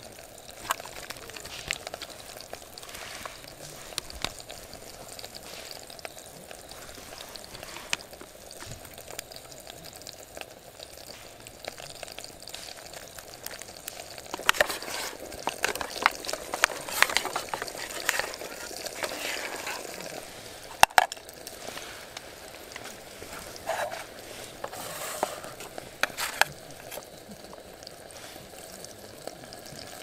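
A spoon stirring mashed avocado dip in a metal camp pot: wet squelching and scraping, busiest in the middle, followed by a few sharp clicks of metal on metal. A steady hiss runs underneath.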